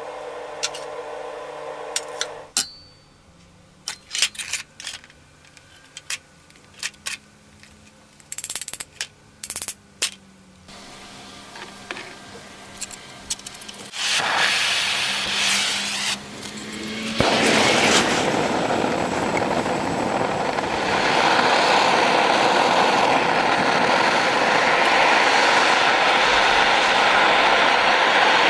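Homemade gas forge firing up. After scattered clicks and knocks over a low steady hum, a hiss builds, and from about two-thirds of the way in the burner runs with a loud, steady roar.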